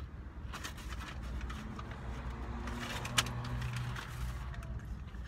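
Takeout bag rustling and crackling as it is rummaged through, with one sharp click a little past the middle, over a steady low rumble in the car cabin.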